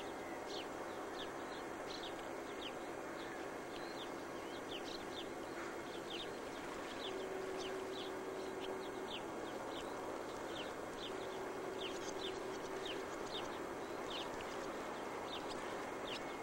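Small birds chirping, short high calls repeating a couple of times a second over a steady hiss. A faint low hum comes and goes in the middle of the stretch.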